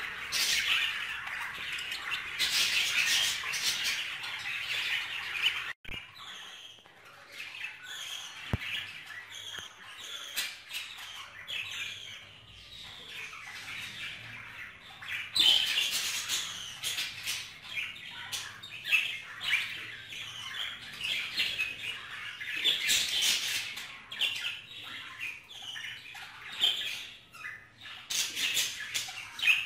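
Several budgerigars chattering: a continuous mix of warbling chirps and short squawks that swells into louder bursts, with a brief sudden dropout about six seconds in.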